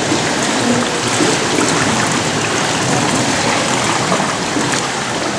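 Steady rush of water in an indoor swimming pool, with small splashes.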